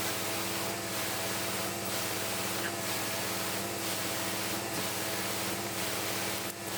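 A concrete line pump running: a steady engine drone under a hissing noise, with a regular pumping stroke about once a second.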